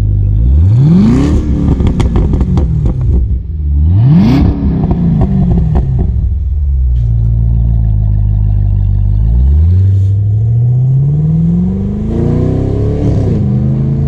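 Supercharged 6.2-litre LSA V8 of a 2012 Chevrolet Camaro ZL1, heard at its quad exhaust: two sharp blips of the throttle from idle, each followed by crackling from the exhaust, then a few seconds of idle. About two-thirds of the way in the engine pitch climbs steadily as the car accelerates away, dipping once near the end.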